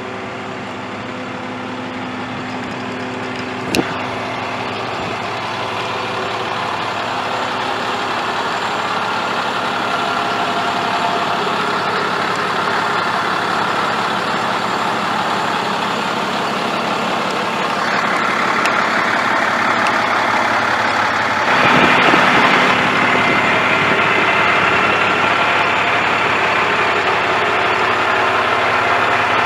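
Paccar PX-6 inline-six diesel of a Peterbilt ramp truck idling steadily while the hydraulic rollback bed is raised. The running grows louder and harsher about two-thirds of the way through, with a brief louder surge a few seconds later, and there is a single click about four seconds in.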